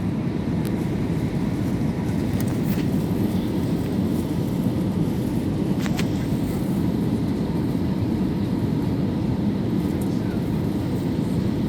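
Steady cabin noise of an Airbus A320neo airliner: a constant low rumble of engines and airflow heard from inside the passenger cabin, with a faint click about six seconds in.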